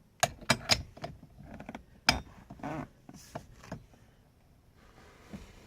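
Several sharp metallic clicks and knocks, the loudest about two seconds in, from hand tools and steering-wheel hub parts being handled during the install, followed by quieter handling noise.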